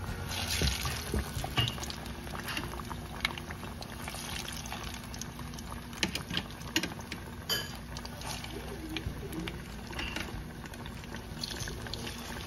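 Plantain slices deep-frying in a pot of hot oil: the oil sizzling and bubbling steadily, with scattered crackling pops.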